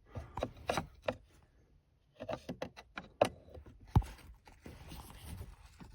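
Flat screwdriver clicking and scraping against the plastic retaining clips of a dashboard screen while prying them: a run of short sharp clicks, a pause of about a second, more clicks, then one harder knock about four seconds in.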